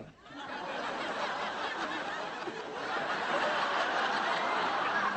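Studio audience laughing, swelling up within the first second after a brief lull and carrying on steadily.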